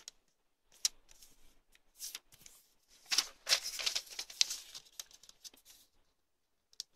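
A sheet of origami paper rustling and crinkling as it is folded and creased by hand, with a sharp snap about a second in and a longer stretch of rustling from about three seconds in.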